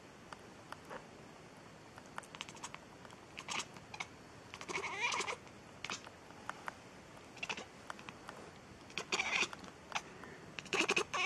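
Domestic cat giving a few short, squeaky mews, with small clicks in between.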